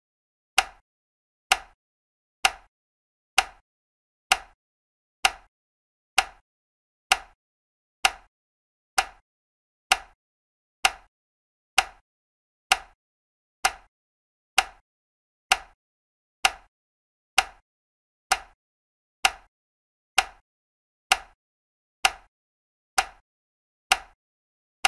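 Table lamp switch clicking on and off, a sharp single click repeated evenly about once a second, with silence between the clicks.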